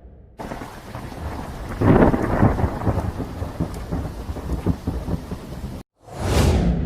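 Thunderstorm sound effect: steady rain with a rumble of thunder swelling about two seconds in, cut off abruptly near the end. Just after the cut a swoosh sound effect begins.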